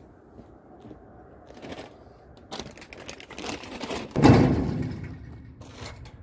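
Rustling and knocking of mesh bags of tangerines being shifted in a truck's under-trailer storage box, with a loud thump about four seconds in that dies away over about a second.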